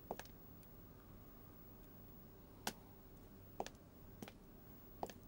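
Footsteps of hard-soled shoes on a wooden floor: about five sharp, separate steps, unevenly spaced, against a quiet room.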